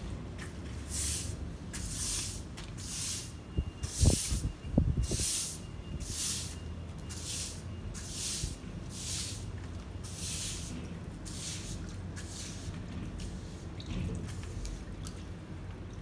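Plastic-bristled broom sweeping wet, gritty sediment across a cement floor: brisk, scratchy strokes about one a second that fade out near the end. A few dull knocks come about four to five seconds in.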